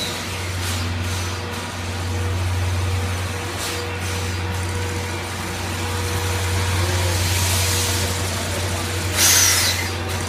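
Steam locomotive C56 160 rolling slowly alongside the platform and drawing up, over a steady low hum. Short hissing bursts come about a second in and again around four seconds, and a louder, longer hiss comes near the end.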